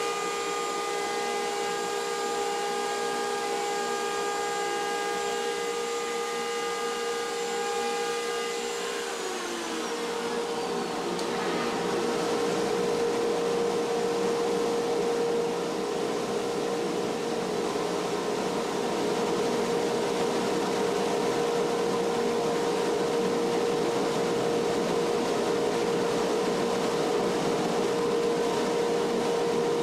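Electric motors of a router copying jig on a metal lathe running steadily while carving a wooden hammer handle, with a whine and a rushing noise. About nine seconds in, some of the whining tones glide downward and stop, as one motor winds down, while a steady whine carries on.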